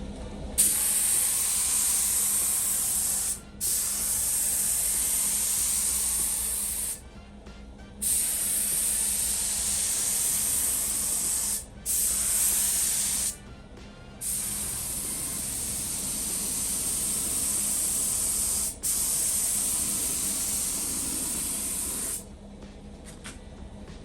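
Primer being sprayed in six hissing passes of a few seconds each, with short pauses between passes.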